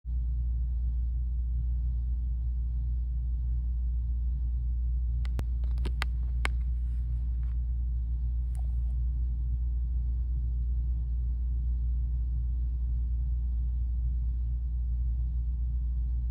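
Steady low rumble throughout, with a quick run of sharp clicks about five to six and a half seconds in and another click a couple of seconds later.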